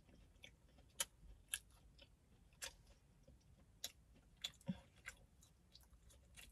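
Faint chewing of a biscuit: soft, irregular mouth clicks and smacks, about a dozen, with no steady rhythm.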